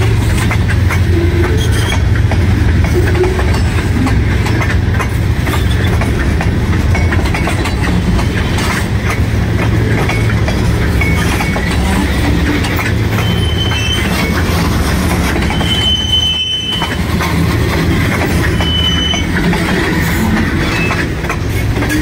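Freight train of tank cars rolling past, a steady rumble of steel wheels on rail. A few short, high wheel squeals come in the second half.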